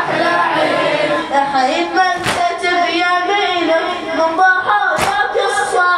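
A boy's solo voice chanting a mourning elegy into a microphone, with melodic held notes that waver in pitch. Two sharp slaps cut in, about two and a half seconds apart.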